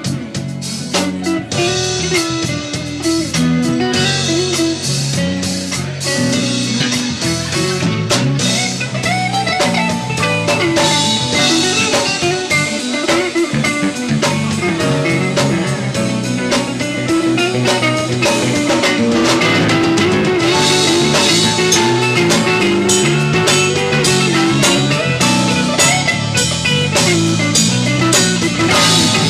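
Smooth jazz-funk band playing, with a guitar leading over bass notes and a drum kit keeping a steady beat.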